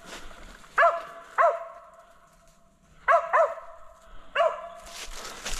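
Mountain cur barking at a squirrel up a tree: five short, sharp barks, two and two and then one.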